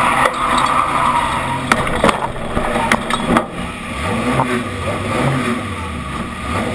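Stockrod race car's engine running hard, heard from the onboard camera, with several sharp knocks about two to three seconds in. The engine eases off briefly, then revs up again.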